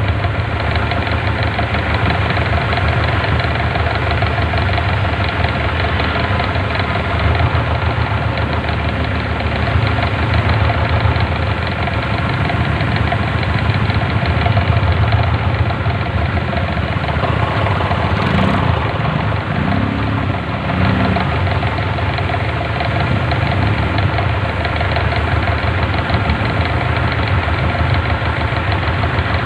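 A vehicle's engine idling steadily up close, a constant low running sound that barely changes.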